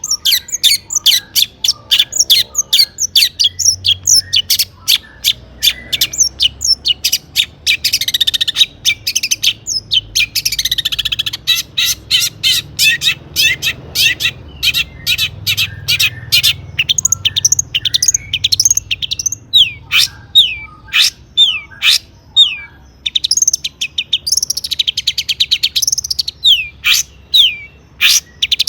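Long-tailed shrike singing energetically: a rapid, unbroken run of sharp chattering notes and down-slurred whistles, broken by harsh raspy passages, a song packed with mimicked phrases.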